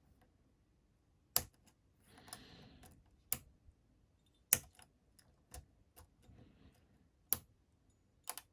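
Lock pins in a Master Lock 410 padlock clicking as they are worked with a lockpick and tension wrench. The clicks are sharp and separate, coming about once a second.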